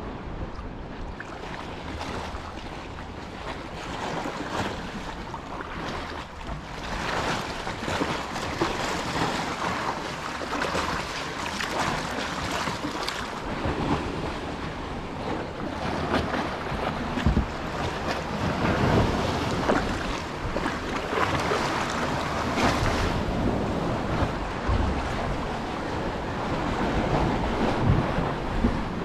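Sea water lapping and splashing around a kayak close to rocky cliffs, with wind noise on the microphone. It grows louder about a quarter of the way in.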